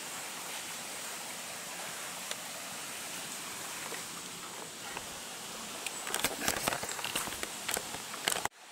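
Footsteps crunching and crackling through dry leaf litter and twigs, a burst of crackles in the last few seconds, over a steady hiss. The sound cuts off abruptly near the end.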